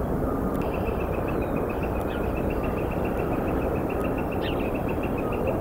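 Outdoor ambience: a steady low rumble under a high, even trill of about eight notes a second that starts about half a second in, with a couple of short bird chirps.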